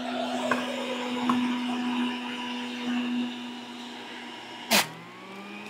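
Breville Juice Fountain Elite centrifugal juicer motor running steadily under load as produce is pushed down the feed chute, with a few light clicks. Near the end there is one loud knock, after which the motor's hum drops in pitch and climbs back.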